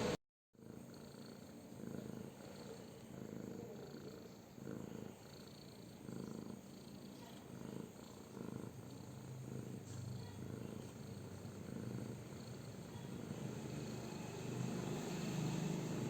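A cat purring close up, the purr swelling and fading about once every second or two.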